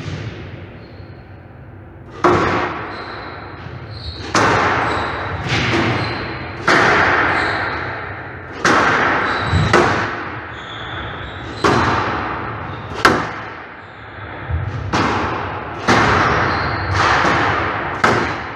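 Squash practice rally: a squash ball struck hard by rackets and hitting the court walls, about a dozen sharp hits one to two seconds apart, each ringing on with a long echo in the hall.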